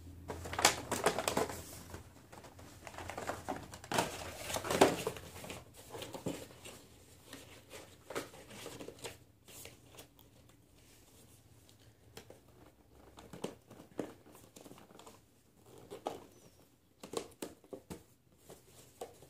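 Clear plastic blister packaging crinkling and crackling as an action figure is worked out of its tray, busiest in the first five seconds, then scattered crackles and clicks.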